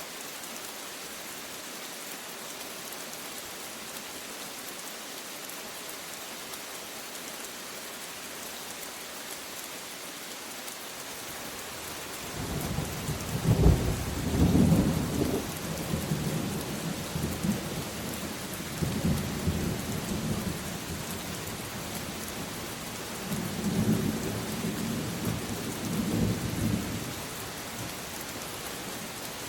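Steady rain, with a long rolling thunder rumble starting about twelve seconds in, loudest at first and swelling again several times before fading near the end.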